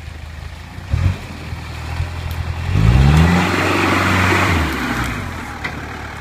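Land Rover Perentie's diesel engine revving under load as the truck drives up out of a mud hole: a short rev about a second in, then revs rising about three seconds in, held for a couple of seconds and easing off.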